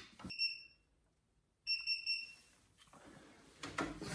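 Two short electronic beeps from a wheel balancer's control panel, the second starting about a second and a half after the first, followed by faint handling noise.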